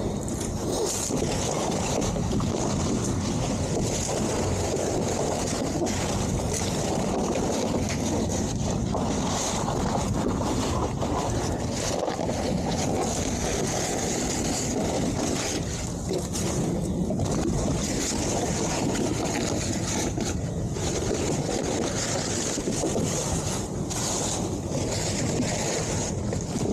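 Steady wind noise on the microphone: an even rushing hiss with a low rumble under it.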